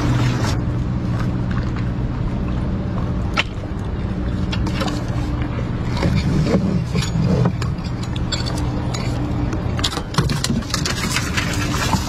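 A small boat's motor hums steadily. There is a sharp knock about three seconds in, and splashing about halfway through as a fish is speared and thrashes on a multi-pronged fish spear. A run of sharp knocks comes near the end.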